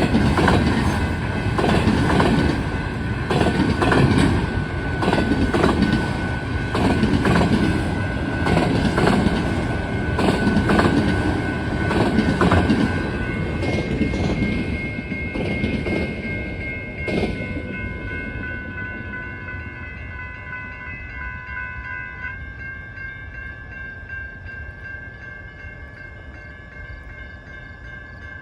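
Freight train cars rolling past, wheels clicking over rail joints in a steady rhythm of about one clatter a second. Around seventeen seconds in the clatter ends and the train noise fades away, leaving steady high-pitched ringing tones.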